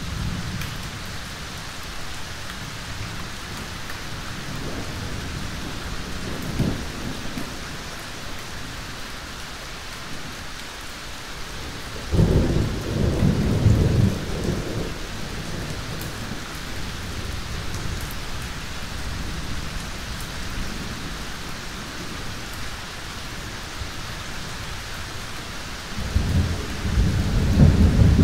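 Steady rain with thunder. A faint low rumble comes about a quarter of the way in, then a loud thunderclap and rumble near the middle lasts about three seconds, and another loud peal of thunder builds near the end.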